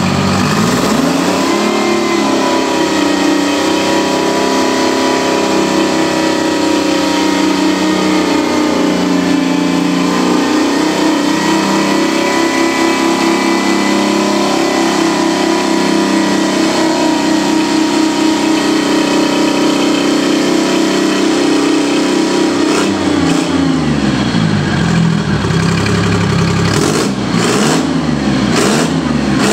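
Detroit Diesel 3-53 three-cylinder two-stroke diesel engine running on a stand. It revs up about a second in, holds at high speed for around twenty seconds, drops back at about 23 seconds, then is revved up and down a few times near the end.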